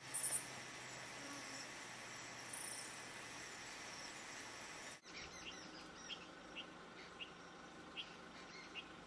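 Forest ambience: a steady high drone of insects, then, after a cut about five seconds in, a bird giving short repeated chirps over fainter insect noise.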